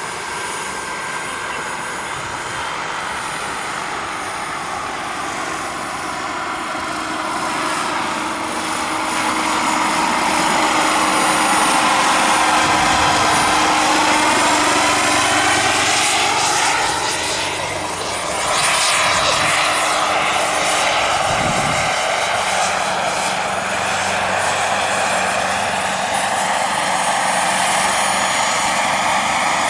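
Turbine-powered scale model Bell 206 JetRanger helicopter in flight: the small gas turbine's steady whine over the rushing of its 3.3 m main rotor. It grows louder from about a quarter of the way in, its pitch sweeping as it passes near in the middle, dips briefly, then comes back loud.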